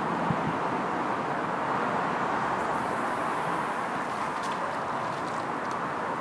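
Steady hiss and rumble of road traffic on a big road bridge, vehicles passing continuously, with a single brief click just after the start.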